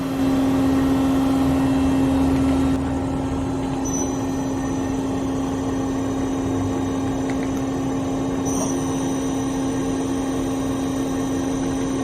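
Doosan Puma MX2500ST CNC mill-turn center running with a steady machine hum. The hum is louder for the first few seconds, then drops. A thin high whine joins about four seconds in and grows stronger around eight and a half seconds.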